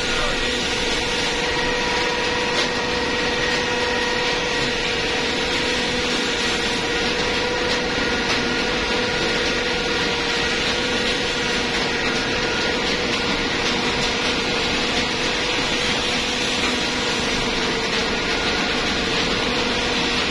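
Forced-draught gas burner on an absorption chiller firing steadily: the blower fan's even hum and whine over a constant rush of air and flame.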